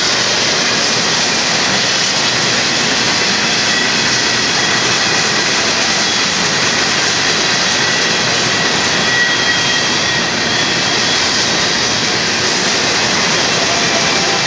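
Union Pacific freight cars rolling past at speed: a loud, steady roar of steel wheels on the rails, with a faint high squeal now and then.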